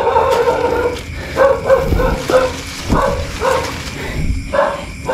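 An animal calling over and over in short, clearly pitched notes at an uneven pace, with a couple of dull low thuds.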